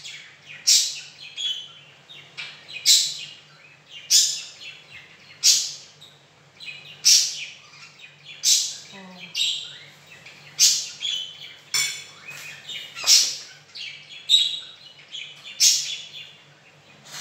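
A bird chirping repeatedly, one short, sharp, high call about every second or so, over a faint steady low hum.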